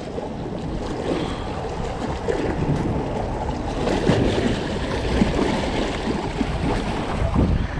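Small waves washing and sloshing over the rocks of a shoreline jetty, with wind buffeting the microphone.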